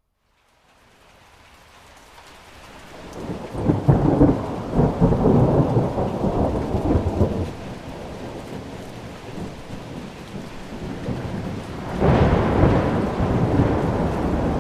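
Thunder rolling over steady rain. The sound drops out almost completely at the very start, then builds over a couple of seconds into a loud, crackling rumble about four seconds in. That eases after a few seconds, and a second loud peal comes near the end.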